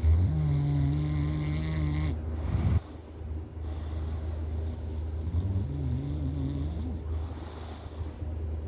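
A sleeping person snoring: a long pitched snore in the first three seconds that cuts off sharply, then a fainter one about five to seven seconds in.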